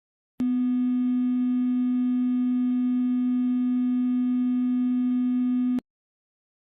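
A steady low tone with fainter higher overtones starts abruptly just after the start, holds unchanged for about five seconds, and then cuts off abruptly.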